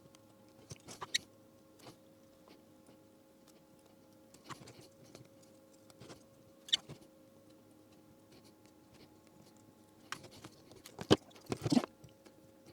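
Scattered small clicks and rustles of parts and tools being handled on a workbench, with a sharper click about seven seconds in and a cluster near the end, over a faint steady electrical hum.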